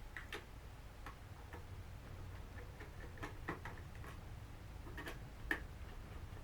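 Light, irregular clicks and ticks of a small jeweler's screwdriver working screws out of a DJI Mavic Pro drone's plastic body, with the sharpest click about five and a half seconds in, over a faint steady low hum.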